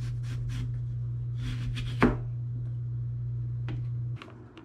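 Kitchen knife cutting through watermelon rind on a cutting board: a few short strokes, then a longer cut that ends in a sharp knock of the blade on the board about two seconds in, and a couple of light taps later. A steady low hum underlies it and stops near the end.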